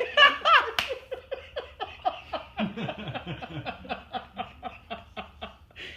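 A woman laughing hard in quick, even pulses of falling pitch, about four a second, loudest at the start. A lower voice laughs along from about halfway in.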